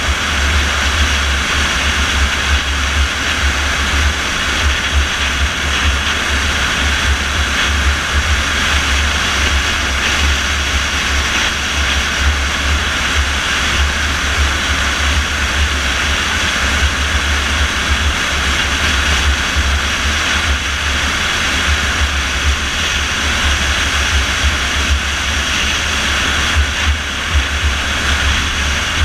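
Steady driving noise of a car at road speed, heard inside the cabin: a low, fluttering drone of engine and road, with a broad tyre and wind hiss over it.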